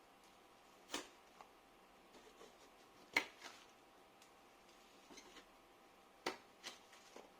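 A few sharp, separate clicks with faint crackling between them, from a rigid plastic card being worked around the edge of an iMac's glued-on display to free it from its adhesive.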